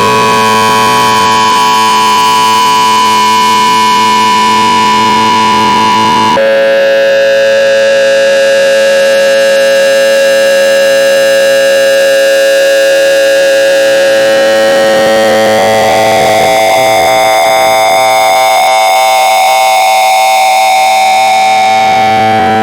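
Loud, harsh electronic tones, each held steady for several seconds over a noisy buzz. The pitch jumps lower about six seconds in and shifts higher again about fifteen seconds in.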